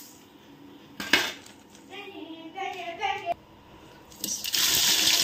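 A steel bowl clinks against the pot rim, then chopped onions and whole spices are tipped into hot oil and start sizzling loudly about four seconds in.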